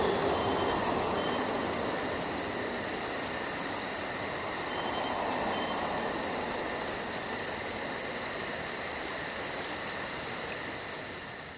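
Crickets chirping in a fast, even pulse over a steady soft hiss of night ambience, slowly fading out near the end.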